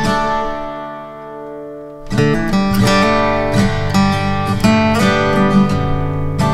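Background acoustic guitar music: a chord rings and fades for about two seconds, then quick plucked notes pick up again.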